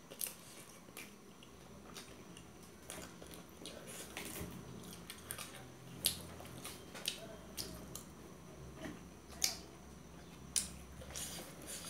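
Forks clicking and scraping against steel plates at irregular moments while fried momos are eaten, with soft chewing between the clicks.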